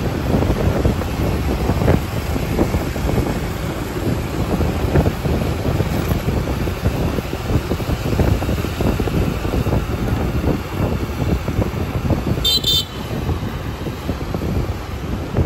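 Ride on a motorbike through city traffic: wind buffeting the microphone over engine and road noise, with the rumble of surrounding traffic. About twelve seconds in, a short, high horn toot sounds.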